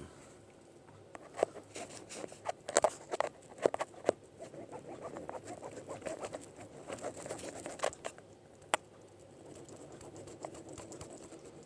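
Handling noise close to the microphone: irregular clicks, taps and scratchy rustling as things are picked up and moved, with a cluster of sharper knocks in the first few seconds and a single one later.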